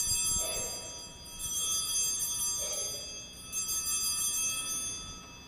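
Altar bells (sanctus bells) rung at the elevation of the chalice during the consecration. A cluster of small bells jingles and rings out, is shaken again about a second in and once more about two seconds later, and each ring fades away.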